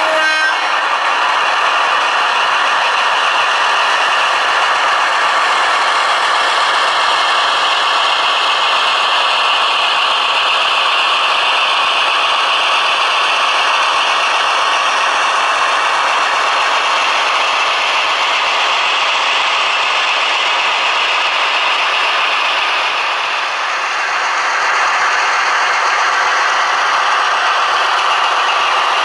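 Piko V 200 model diesel locomotive and its train running along model railway track: a steady mechanical rattle of wheels and motor, dipping briefly near the end.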